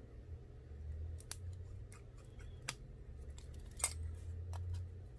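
Small, sharp metallic clicks and ticks of a precision screwdriver driving and seating tiny screws in the metal plate on the back of an iPhone 8 replacement screen. About eight scattered clicks, the loudest a little before four seconds in, over a low handling rumble.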